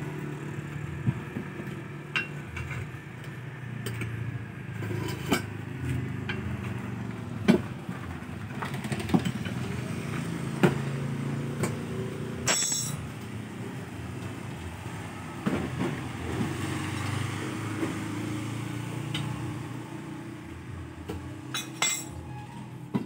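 Motorcycle engines humming as scooters ride past, with scattered sharp metal clinks of hand tools being handled.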